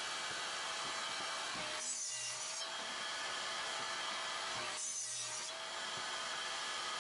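A motor running steadily: an even rushing noise with a steady whine, shifting briefly twice.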